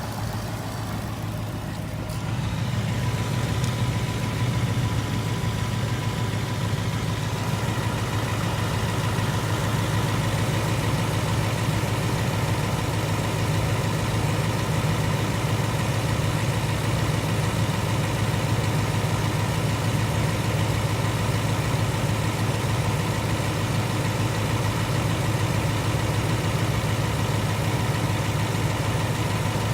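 2018 Ford Mustang GT's third-generation Coyote 5.0 V8 idling steadily, running smooth and quiet. The owner is unsure whether it has the Coyote's 'typewriter' tick.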